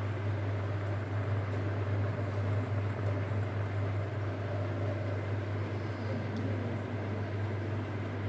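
Electric steam inhaler running with its water at the boil and steam coming out: a steady low hum under an even rushing noise.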